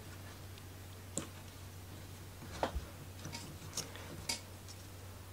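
A handful of light clicks and taps from thin laser-cut plywood pieces being fitted and pressed together by hand, the sharpest about two and a half seconds in.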